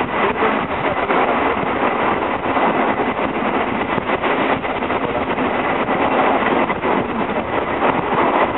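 Steady running noise of a moving passenger train, heard from inside the carriage.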